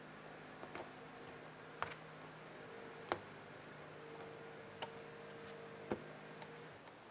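Scattered sharp clicks and taps of small plastic and metal laptop parts and tools being handled during disassembly, about six in all, the loudest about three seconds in. Under them runs a faint steady hum that stops shortly before the end.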